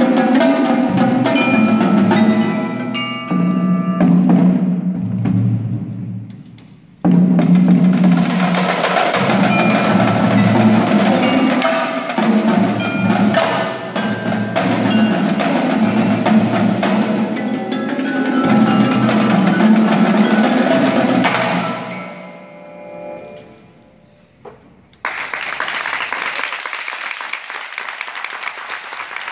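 Indoor percussion ensemble playing: marimbas and xylophone over snare, tenor and bass drums and cymbals. The music dips, comes back in suddenly and loud about seven seconds in, then fades out with a last hit. Audience applause takes over near the end.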